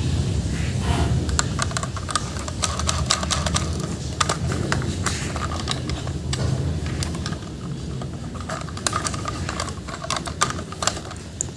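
Rapid, irregular small clicks and taps of plastic toys and packaging being handled, over a steady low hum.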